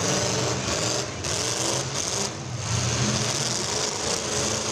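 Demolition derby cars' engines running, a steady low rumble from several cars at once.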